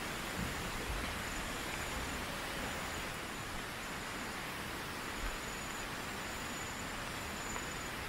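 Rainforest ambience: a steady rushing hiss with a thin, high insect trill that comes and goes in long stretches.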